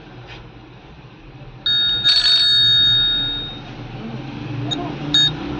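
An Honor 8X's loudspeaker playing an electronic ringtone. It starts about one and a half seconds in, is loud for about two seconds and then fades, with short beeps near the end. The sound shows that the loudspeaker works again after the jumper repair.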